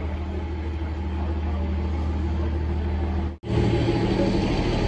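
Steady low hum of a cog railway train's engine idling at the platform, with an even low rumble. It breaks off for an instant about three and a half seconds in, then carries on.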